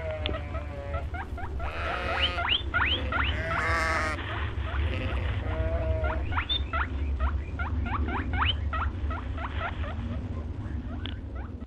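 Many short, high squeaks from several small animals, several a second and overlapping, over a steady low rumble.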